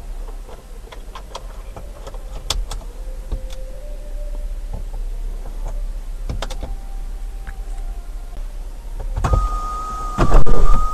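Plastic clicks from the roof-console buttons and a flip-open compartment lid on a Jaguar, then, near the end, the electric sunroof motor starts with a steady whine under a loud rush of noise.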